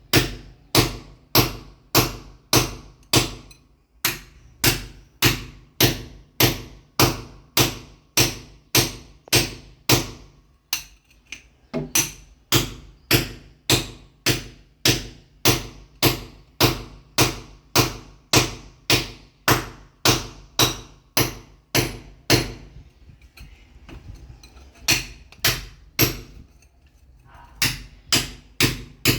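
Hammer blows breaking concrete: sharp ringing strikes at a steady pace of about two a second, with brief pauses around 4 seconds in, 11 seconds in, and two longer ones in the last third.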